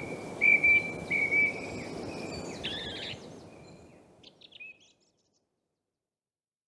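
Song thrush singing: a clear note repeated three times, then a more complex phrase and a few faint notes, over a low background rumble. The recording fades out to silence about five seconds in.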